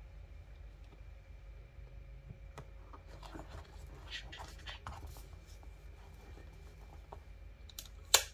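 Paper and a hardcover journal being handled: rustling and soft scraping of the cover and sheets about three to five seconds in, then one sharp, loud knock near the end.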